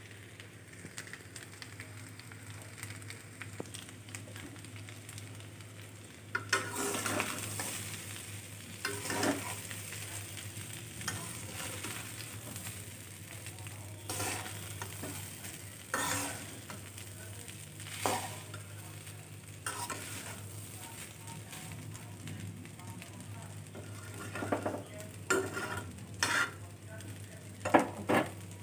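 Vegetable pulao sizzling in a stainless steel kadai while a spatula stirs and scrapes through the rice, with scraping strokes about every two seconds from about six seconds in. A steady low hum runs underneath, and a sharp knock of utensil on pan comes near the end.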